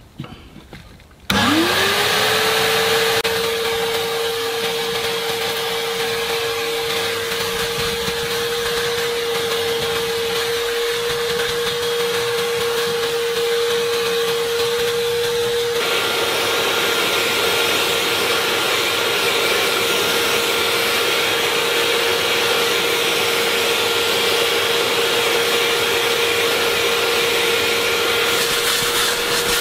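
Bissell SpotClean Pro Heat upholstery cleaner switched on about a second in. Its suction motor whines quickly up to speed, then runs steadily with a rushing of air. About halfway through the rush becomes fuller and hissier, and a faint high whistle joins the motor's whine.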